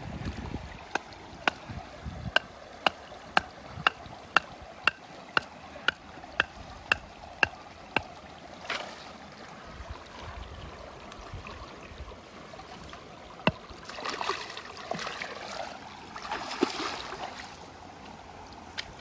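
A piece of wood knocking a bamboo stake into a canal bed: about fourteen sharp knocks, two a second, then a single knock later on. Shallow water runs steadily under it, with splashing and rustling near the end.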